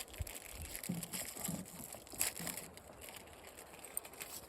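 Faint rustling and light clicks as a box of framing nails is opened and handled, with one sharper click about two seconds in.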